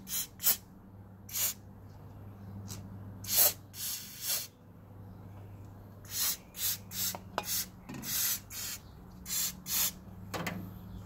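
Aerosol brake cleaner sprayed in a dozen or so short hissing bursts, most under half a second and one lasting about a second, washing oil off a timing belt.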